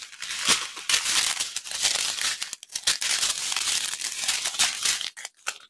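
Small resealable plastic bags of diamond-painting drills crinkling and rustling as a handful of them is swept and shuffled across a wooden table, with many short sharp crackles. The rustling thins to a few brief crinkles about five seconds in.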